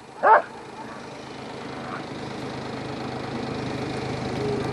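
A farm tractor's engine running steadily and growing gradually louder, with a dog giving one short bark just after the start.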